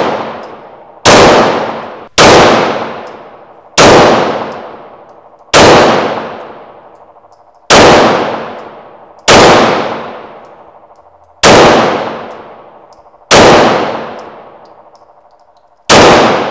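Glock 9mm semi-automatic pistol fired in single aimed shots, nine in all, spaced about one and a half to two seconds apart. Each shot trails off in a long echo off the concrete-block walls of an indoor range.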